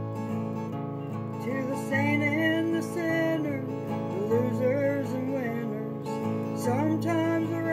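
Acoustic guitar strummed in a steady rhythm. A woman starts singing over it about a second and a half in.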